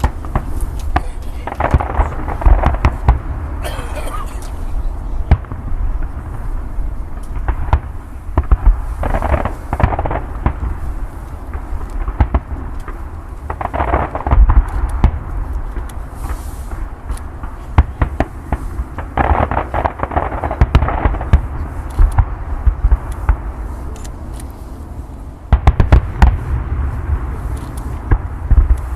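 Fireworks display: a dense run of bangs and crackles over a constant deep rumble, bunching into heavier volleys every few seconds, the loudest near the end.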